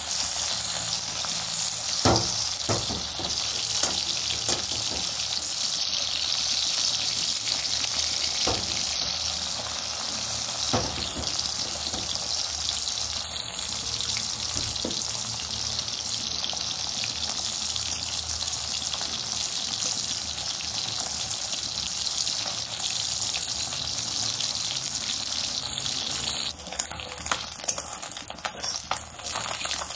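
Small whole fish frying in hot oil in a metal kadai, a steady sizzle with a few sharp clicks. Near the end the sizzle turns thinner and crackly.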